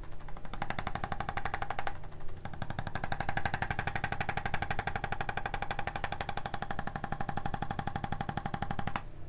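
Handheld electric percussive adjusting instrument tapping rapidly on the body, a fast even rattle with a steady hum. It runs briefly, pauses about two seconds in, then runs steadily until it cuts off just before the end.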